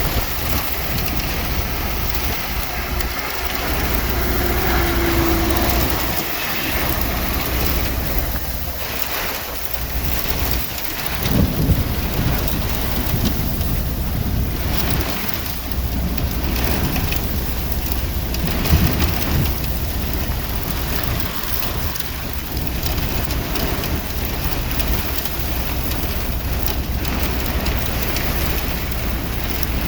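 Heavy rain pouring steadily in a storm, a dense even hiss with a constant low rumble beneath it and brief swells about a third and two-thirds of the way through.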